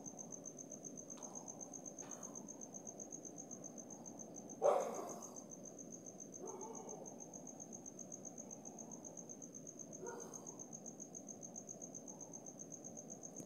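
A cricket trilling steadily on one high, rapidly pulsing note over a low, even background rumble. A sudden knock about four and a half seconds in is the loudest sound, with softer knocks around six and a half and ten seconds.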